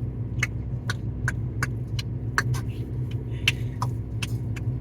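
Car running, heard from inside the cabin as a steady low hum, with short sharp clicks at irregular spacing, about two or three a second.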